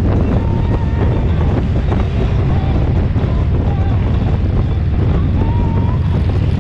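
Wind rushing over the microphone with a steady low rumble from a motorcycle riding at road speed.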